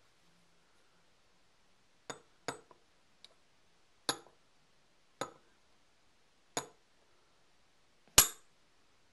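Metal-on-metal clinks as a bent steel bar is set down and shifted against a steel ruler and other steel bars: about seven separate light knocks, each with a short high ring, the last one the loudest.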